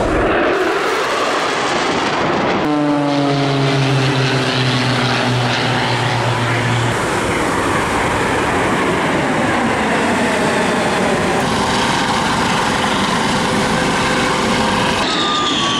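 Military jet engines of air show aircraft flying past, a loud steady rush of engine noise. A few seconds in, the sound cuts abruptly to another pass in which a whine falls steadily in pitch as the jet goes by. The sound changes abruptly again twice more later on.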